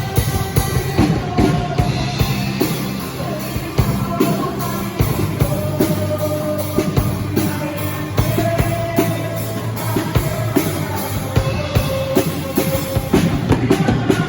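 Live worship band rehearsing a song: a drum kit keeps a steady beat under bass and a held melody line.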